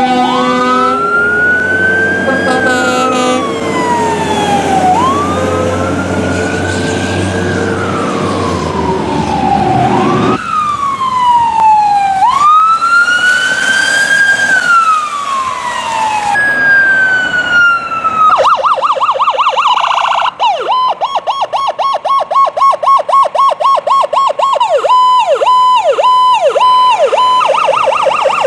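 Fire apparatus sirens: slow wailing sweeps that rise and fall over a couple of seconds each, with a low engine rumble under the first part. About two-thirds of the way through, the siren switches to a fast rapid yelp, pulsing several times a second.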